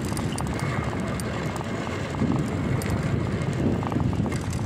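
Wind buffeting the microphone and tyre rumble of a bicycle rolling over rough concrete, with scattered faint ticks.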